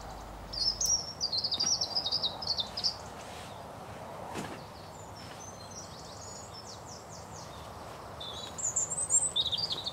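A small songbird singing in quick, high twittering phrases: a loud one about a second in, a fainter one in the middle and another near the end, over a steady outdoor background hiss.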